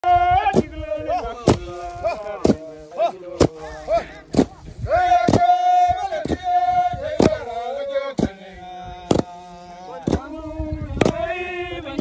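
Men's voices chanting a work song together while a team threshes harvested grain heads with wooden beaters, each stroke landing as a sharp thud about once a second in time with the chant.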